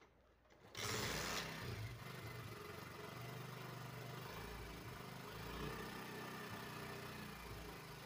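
Honda CD70's small single-cylinder four-stroke engine idling, heard close up at the cylinder head with its timing chain freshly replaced. It gets suddenly louder about a second in, then settles into a steady idle.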